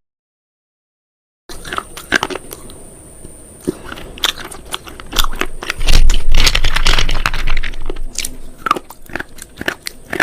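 Something brittle being crunched up close: many sharp cracks and crackles, heaviest and loudest in the middle, after about a second and a half of dead silence at the start.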